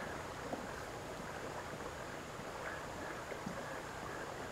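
Steady, faint rush of flowing creek water.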